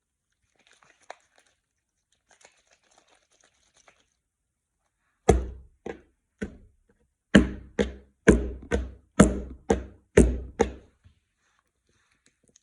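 Faint crackling, then about ten dull, heavy thuds in quick, uneven succession.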